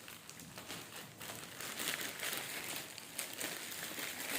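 Parcel packaging crinkling and rustling as it is handled and unwrapped by hand, in irregular crackles.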